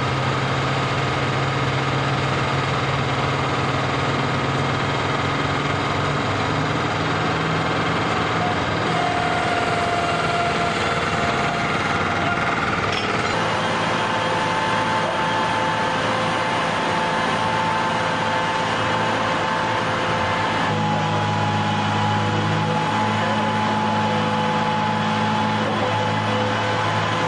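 Loud, steady engine noise inside a hardened aircraft shelter: a low drone with a steady high whine over it. The pitch of the drone and the whine shifts suddenly twice, about halfway through and again later.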